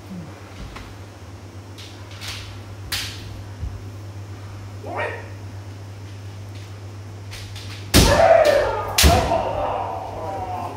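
Kendo sparring: a few sharp clacks of bamboo shinai early on, then about eight seconds in a loud kiai shout with a sharp strike and stamp, a second strike about a second later, and the shout trailing off.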